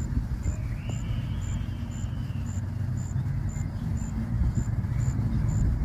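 A cricket chirping in even, short, high chirps, about two a second, over a steady low rumble. This is the temperature-dependent chirp rate: 32 chirps in 15 seconds, plus 37, puts the air at about 69 °F (21 °C).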